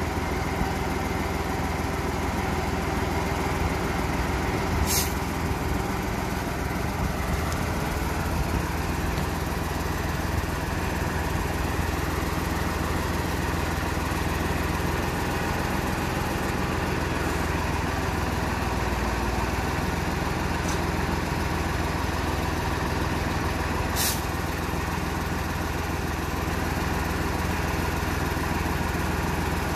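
Diesel engine of a Mercedes-Benz 1622 truck running steadily under load, driving the hydraulics of a Putzmeister truck-mounted concrete pump as its boom is moved. Twice a short, sharp hiss cuts through.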